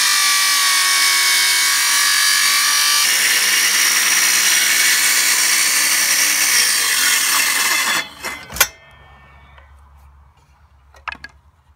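A 1200 W Londa corded circular saw cutting lengthwise through a thick laminated wooden beam, its motor running steadily under load. The saw stops about eight seconds in, followed by a couple of sharp knocks.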